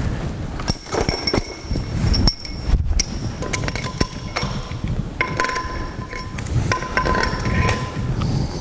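Metal cylinder head studs and a hand tool clinking and knocking against a Triumph Stag V8's aluminium cylinder head as the long top studs are fitted and jiggled into their holes, some knocks leaving a brief metallic ring.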